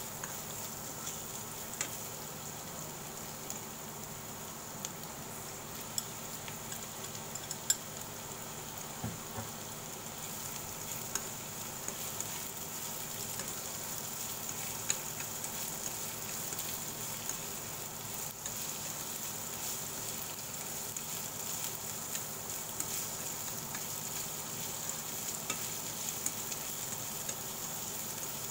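Sliced carrot, onion and green bell pepper stir-frying in oil in a nonstick frying pan: a steady sizzle, with occasional light clicks as the stirring chopsticks hit the pan.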